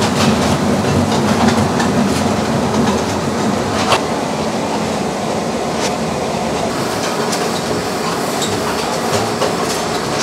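Commercial potato peeling machine running: a steady rumbling clatter of potatoes tumbling in its steel drum, with a couple of sharp knocks about four and six seconds in.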